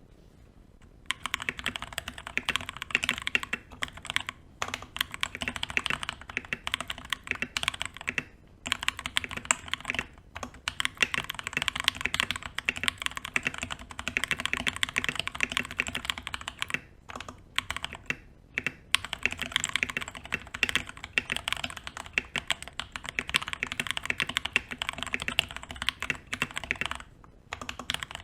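Fast continuous typing on a mechanical keyboard with JWK/Jwick Tactile T1 tactile switches, the keys clacking in quick runs with brief pauses, starting about a second in. The board is foam-dampened, with lubed, band-aid-modded stabilisers.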